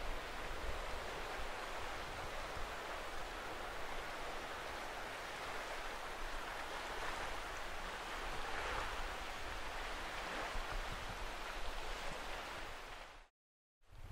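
Steady rushing outdoor noise, the wash of wind or water with no distinct events, swelling a little about two-thirds through. It cuts to silence for about half a second near the end.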